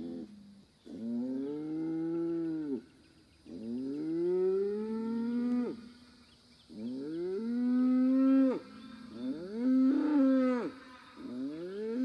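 Young Angus bull bellowing over and over: about five long, loud calls in a row, each sweeping up in pitch and then dropping away.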